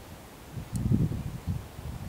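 Wind buffeting the microphone in gusts, a low rumbling noise that swells from about half a second in, with leaves rustling. There is a single faint tick about three-quarters of a second in.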